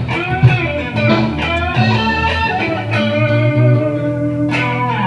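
Music: electric guitar playing over a bass line.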